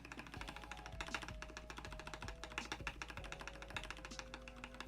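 Fast typing on a Topre electrocapacitive-switch keyboard (CM Storm Novatouch in a Norbatouch case), its switches lubricated with Krytox: many soft keystrokes a second. Quiet background music plays underneath.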